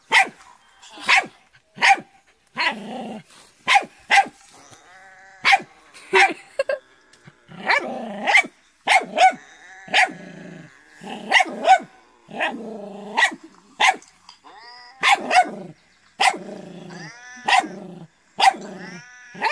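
Puppy barking repeatedly at a fake cat, about one sharp bark a second.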